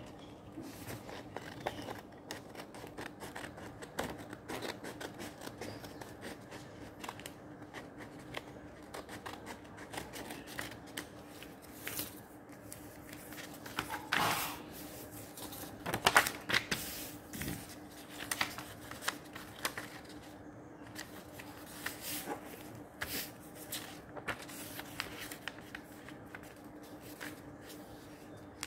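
Sheets of paper being folded and creased by hand: irregular rustling and crinkling with many short taps and scrapes, loudest in a cluster a little past the middle, over a faint steady hum.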